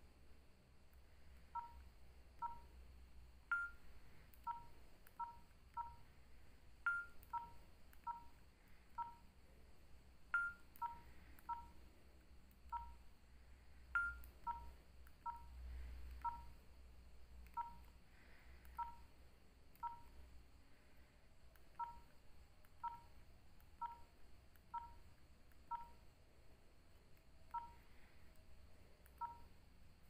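Nokia 3806 keypad tones: short electronic beeps, about one or two a second, as keys are pressed to scroll through the phone's menu. Every few seconds a louder, higher beep comes with a sharp click.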